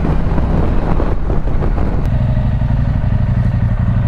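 Husqvarna Norden 901's parallel-twin engine running on the move. The note settles into a steady, even drone about halfway through.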